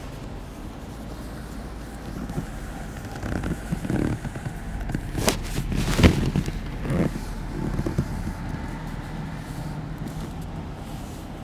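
Barber's hands massaging a head: rubbing and patting, with two sharp smacks a little under a second apart near the middle, the second the loudest.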